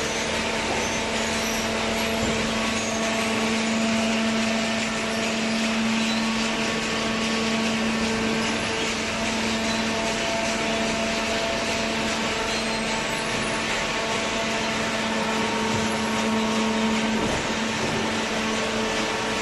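Hydraulic baler running with a steady hum and whine from its motor and pump, over a constant rush of machine noise.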